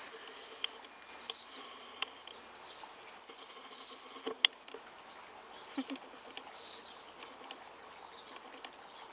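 Quiet garden ambience with faint, scattered bird chirps and a few sharp clicks and taps, the loudest a little over four seconds in.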